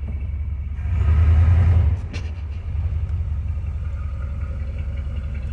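Carbureted car engine running in drive, heard from inside the car, growing louder for about a second as it takes throttle, then dropping back to a steady idle. A short click follows just after.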